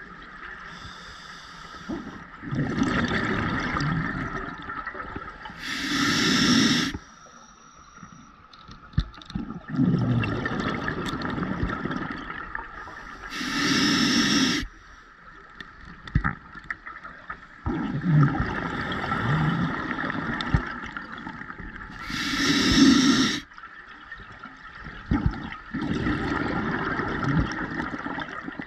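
Scuba diver breathing through a regulator underwater: a short, sharp hiss with each inhale, then a longer stretch of bubbling as the exhaled air leaves, one breath about every eight seconds, three breaths in all.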